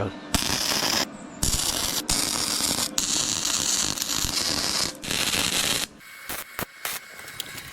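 Flux-core MIG welder crackling in four bursts of one to two seconds each, with short breaks between the weld runs. Near the end come a few sharp clicks.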